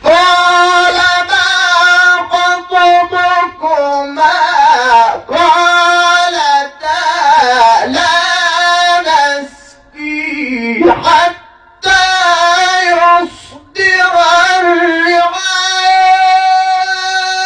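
A male Quran reciter chanting solo in the ornate, melismatic tajwid style, with long held and wavering notes and brief pauses for breath, free of any added echo effect.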